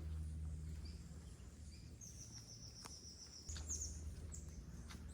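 Forest ambience with a bird singing: a high, thin whistled note about two seconds in, held for over a second, then a few short chirps, over a low steady rumble.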